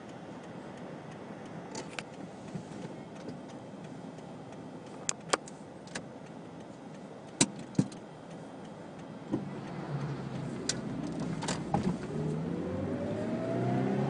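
Inside a moving car: steady engine and road noise with a few sharp clicks. Near the end the engine's pitch rises steadily as the car accelerates.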